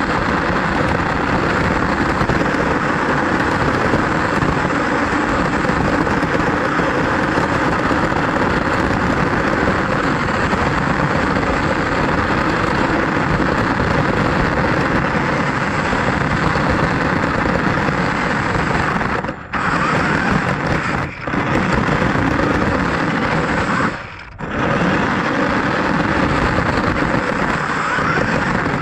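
RC car running over pavement: a loud, steady noise of motor and tyres that drops out briefly three times near the end.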